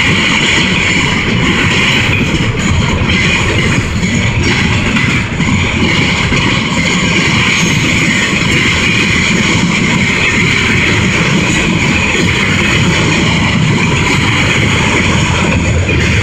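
Double-stack container cars of a freight train rolling past: a steady, loud rumble and rattle of steel wheels on the rails, with occasional clicks.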